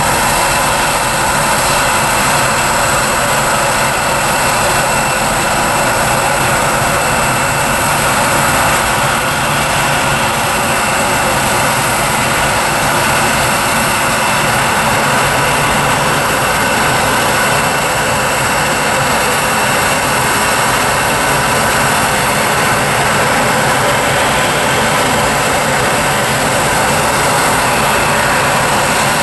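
Jet airliner engines running steadily close by: a constant loud rush with a thin high whine held on one pitch.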